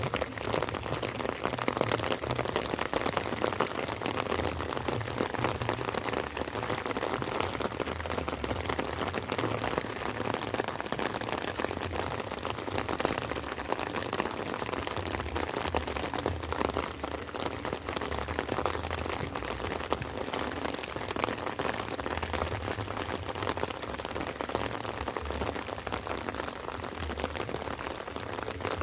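Steady light rain falling, a dense patter of drops, with an uneven low rumble underneath.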